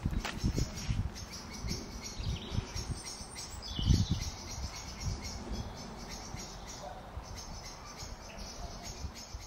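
Outdoor woodland ambience: wind buffeting the microphone in low rumbling gusts, with fast, high-pitched chirping running over it. A louder low thump comes about four seconds in.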